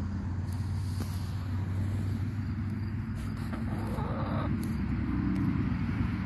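A steady low engine hum runs throughout, with a few faint clicks over it.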